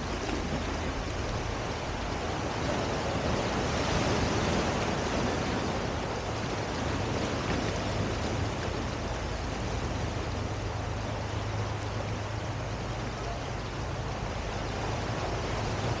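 Ocean surf washing onto a sandy beach: a steady rush of water noise that swells about four seconds in.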